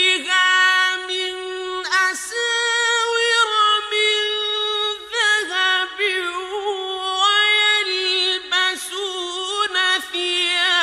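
Solo male voice reciting the Quran in the slow, melodic mujawwad style of tajwid, holding long high notes with wavering ornaments and a few short breaks between phrases.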